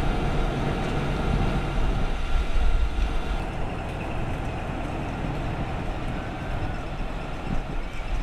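Heavy diesel engine of a mobile crane running steadily, a continuous low rumble.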